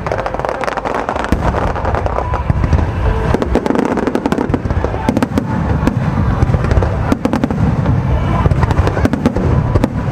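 A fireworks display going off in quick succession: many sharp bangs and crackles over a continuous low rumble.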